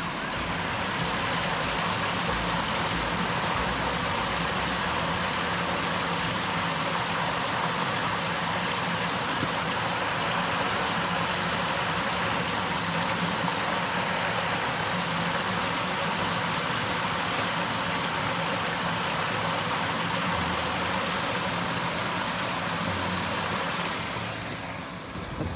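Heavy-rain floodwater rushing and pouring steadily with a constant hiss, a faint steady low hum underneath. It eases slightly near the end.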